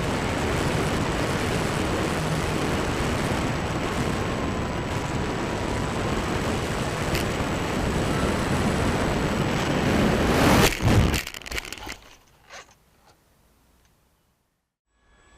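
Loud, steady rushing noise that swells about ten seconds in and breaks off into a short crunching clatter, followed by a few faint clicks.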